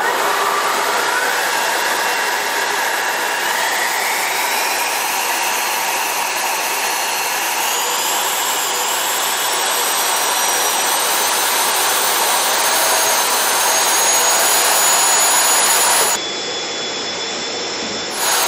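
Electric ducted fan running on a thrust test stand, blowing through its ducting and turning-vane nozzles. It gives a loud rushing whine that climbs steadily in pitch as it spools up over about sixteen seconds, then drops suddenly in level near the end.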